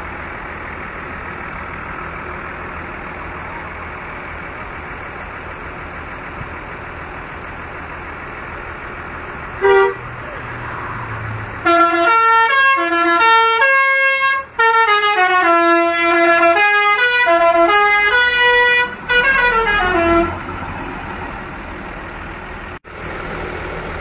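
A tour bus's telolet basuri multi-tone horn gives a short toot about ten seconds in, then plays an eight-second tune of stepping notes, with two short breaks. Before and after it the bus engine idles steadily.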